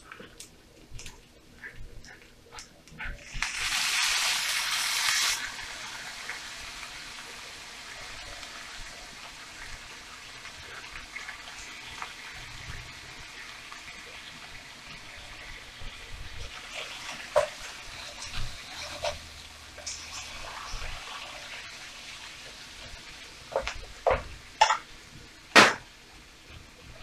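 A tin of corned beef being opened and emptied over a frying pan of sizzling herbs and tomato paste. A loud hiss lasts about two seconds a few seconds in, a faint steady sizzle runs under the handling of the tin, and a quick run of sharp knocks near the end comes as the meat is knocked out into the pan.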